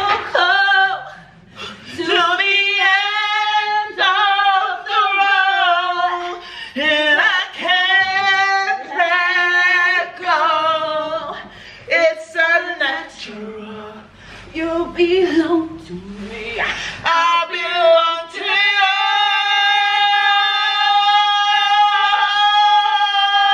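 Two women singing unaccompanied, a string of short sung phrases, then one long held note over the last five seconds or so.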